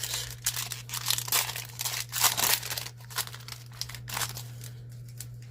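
Foil wrapper of a Magic: The Gathering booster pack crinkling as it is torn open and handled: a quick run of crackles that thins out near the end.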